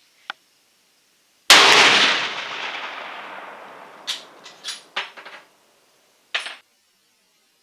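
A single .416 Ruger rifle shot from a bolt-action Ruger M77 Guide Gun, firing a 350-grain brass solid, about a second and a half in; its echo dies away over a couple of seconds. A few sharp metallic clicks follow as the bolt is worked, with one faint click just before the shot.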